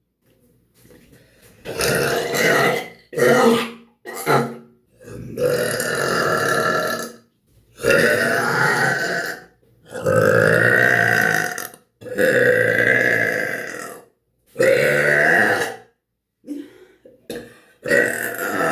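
A woman burping over and over: a string of about ten belches with short gaps between them, several of them long and drawn out, close to two seconds each.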